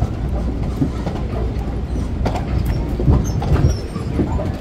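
Boardwalk tram rolling along the wooden boardwalk, heard from on board: a steady low rumble with irregular knocks and rattles from the wheels running over the boards.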